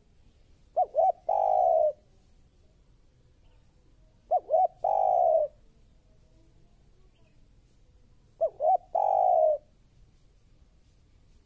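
Spotted dove cooing: three identical phrases about every three and a half to four seconds, each two short quick notes followed by one long, slightly falling coo.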